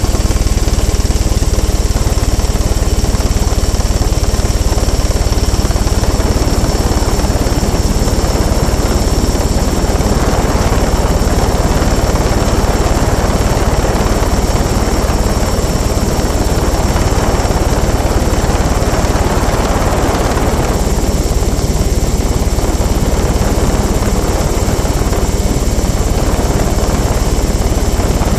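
Mosquito ultralight helicopter's engine and rotor running steadily in flight, heard close up and loud.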